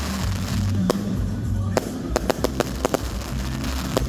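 Fireworks going off in an uneven series of sharp bangs, several close together about two to three seconds in, over music with a steady bass.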